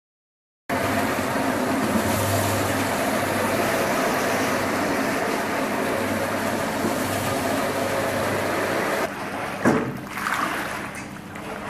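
Rotary floor scrubbing machine running as its brush scrubs a foamy shag rug, a steady motor hum with a scrubbing hiss that starts suddenly. After about nine seconds it gives way to a squeegee pushing soapy water across the rug, a quieter sloshing with a single knock.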